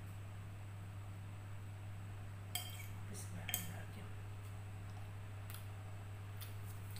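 Metal spoon and fork clinking against a plate of noodles and rice, with two sharp clinks about two and a half and three and a half seconds in, then a few lighter taps.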